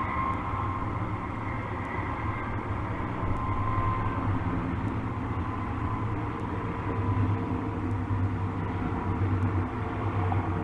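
Steady low rumble of a distant heavy vehicle, with faint steady higher tones above it.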